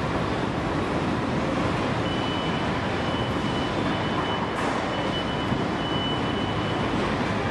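Steady car-assembly-plant floor noise, a continuous even machinery hum, with a faint high whine for a few seconds in the middle.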